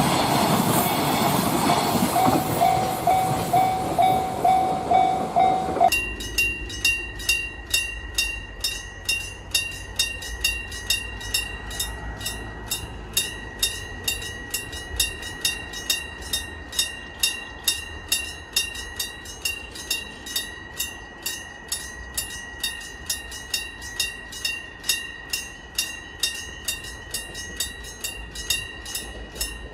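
A train passing a Japanese railroad crossing, with the crossing alarm pulsing under it. About six seconds in the sound changes abruptly to a crossing warning bell ringing its steady electronic kan-kan about twice a second.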